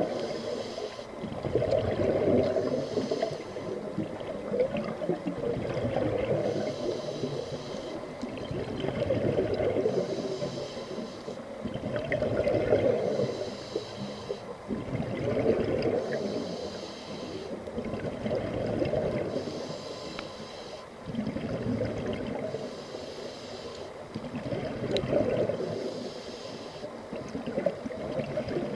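Scuba diver breathing through a regulator underwater: a hiss on each inhale alternating with a rush of exhaled bubbles, in a steady rhythm of about one breath every three seconds.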